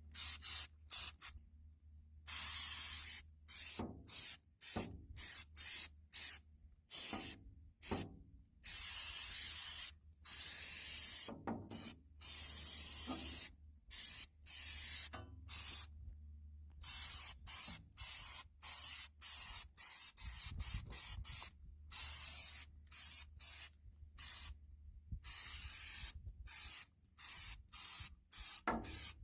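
Aerosol can of spray adhesive hissing in many short bursts as it coats the inside of a metal tool box drawer, each spray starting and stopping abruptly with brief gaps between.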